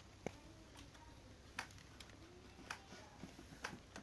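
Faint, irregular clicking, about six sharp ticks, from the powered ENIE ELE32M07A11K1 LED TV's power supply board over a low steady hum. The clicking is the symptom of the fault: the set's light comes on but the TV does not start.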